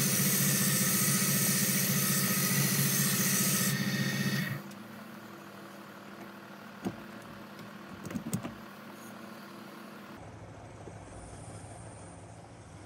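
Small benchtop wood lathe spinning a long wooden dough-rolling tool while sandpaper is held against it: a steady motor hum under a rough sanding hiss. About four and a half seconds in the sanding stops and the sound drops to a quieter low hum, with a couple of light knocks as the piece is handled.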